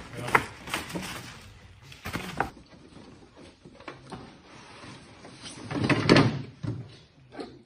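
Cardboard boxes being handled and opened: a few knocks and rustles, then a loud scraping slide about six seconds in as a tall cardboard box is drawn up out of another box.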